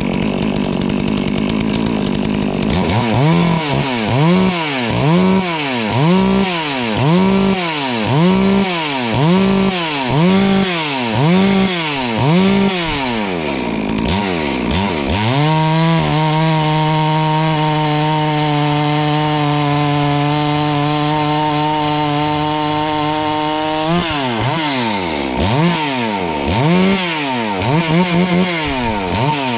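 FarmMac F380W 72cc two-stroke chainsaw cutting wood. Its engine pitch rises and falls over and over, somewhat faster than once a second, then holds steady at high revs for about eight seconds past the middle, then rises and falls again near the end.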